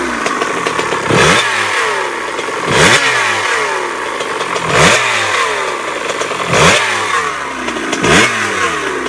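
Two-stroke dirt bike engine blipped about five times, each rev shooting up quickly and then falling back with a long, drawn-out descending whine. The rider describes it as a weird whining noise after revving and suspects a cracked pipe, bad seals, or a top end that needs rebuilding.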